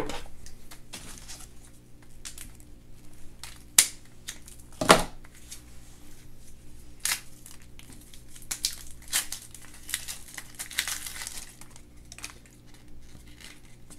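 Toy packaging being crinkled and torn open by hand, with scattered crackles, two sharper clicks about four and five seconds in, and a busier stretch of crinkling near the middle.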